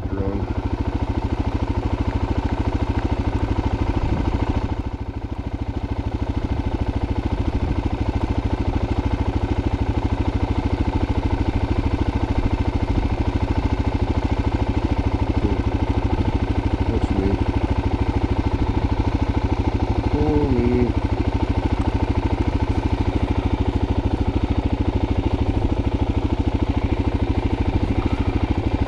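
An engine or motor running steadily with a fast, even pulse. A few short pitched sounds break in about twenty seconds in.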